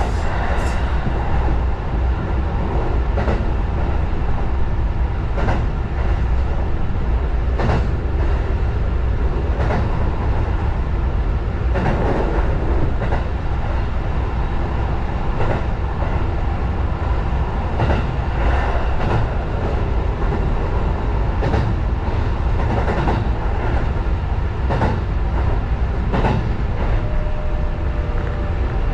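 Sanyo Electric Railway 6000-series electric train running along the track, heard from inside the driver's cab: a steady rumble of wheels on rail, with a click every couple of seconds as the wheels cross rail joints. A steady whine comes in near the end.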